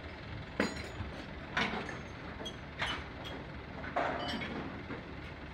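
Scattered metallic clanks and knocks, about five in a few seconds, some with a brief ringing tone, over a steady low rumble.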